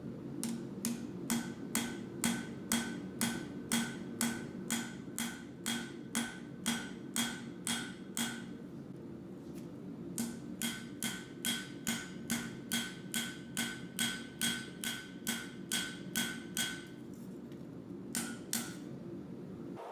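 Blacksmith's hammer striking steel on an anvil at a steady pace of about two blows a second, each blow ringing; two long runs of blows with a pause of about two seconds between them, then two last blows near the end. A steady low hum runs underneath.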